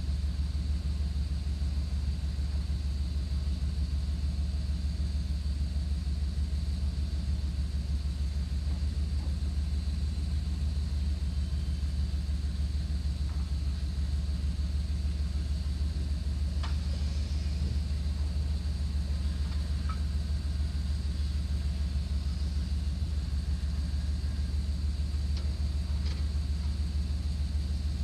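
Engine running steadily: a low, even rumble that holds at one pitch, with a few faint knocks about two-thirds of the way through.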